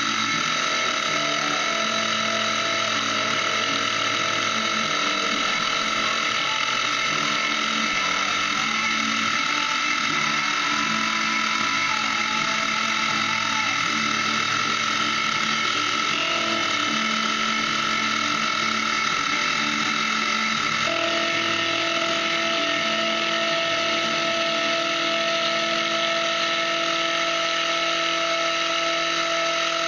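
Milling machine running with its end mill cutting a clamped knife-bolster workpiece: a steady motor whine with a high, constant tone over a rougher cutting noise. About two-thirds of the way through, the lower tones shift to a new steady pitch.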